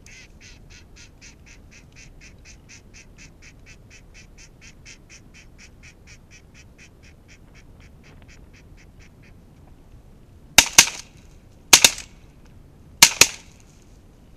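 A fast, even run of short duck calls, about five a second, slowly fading out over some nine seconds. Then shotgun shots in three quick bursts over about two and a half seconds, much louder than the calls.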